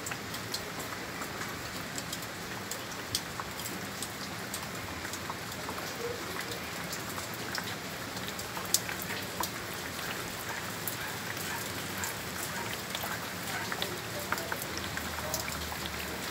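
Heavy rain falling steadily, an even hiss dotted with many sharp ticks of single drops striking close by, one louder tick about halfway through.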